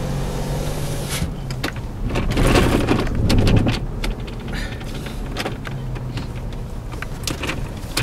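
Car engine running steadily at low speed, heard from inside the cabin, with scattered clicks and a louder noisy stretch about two to four seconds in.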